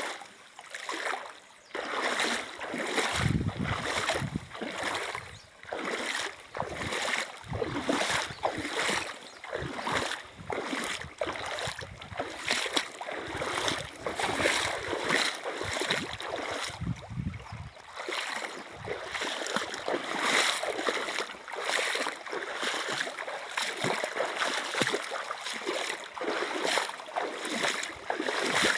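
River water running, with frequent irregular splashes.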